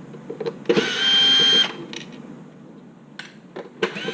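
Cordless drill-driver spinning for about a second to back out a screw, its motor whine rising as it starts and then holding steady. A few light clicks of handling follow, and the driver starts again near the end.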